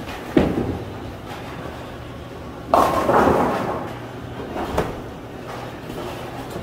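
A bowling ball thudding onto the lane just after release, then a couple of seconds later the louder clattering crash of pins being hit, followed by a smaller knock. A steady low hum runs underneath.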